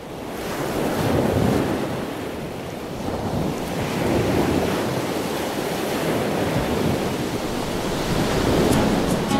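Sea waves and wind: a steady wash of surf that fades in over the first second and then swells and ebbs every few seconds.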